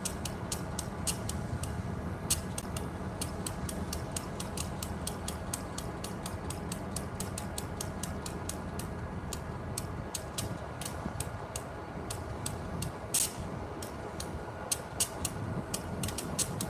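Rapid, irregular clicking and ticking, several clicks a second, over a steady low rumble.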